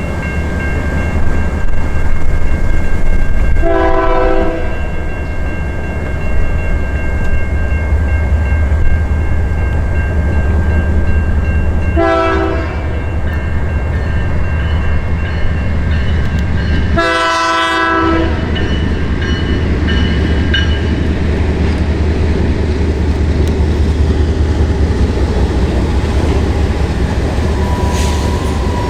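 Passing train with its diesel locomotive rumbling steadily, and its air horn sounded in three separate blasts about four, twelve and seventeen seconds in, the last the loudest.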